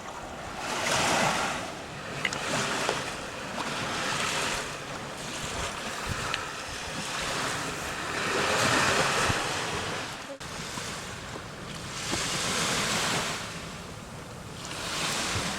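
Sea waves breaking and washing up on a beach, swelling and fading every few seconds, with some wind on the microphone.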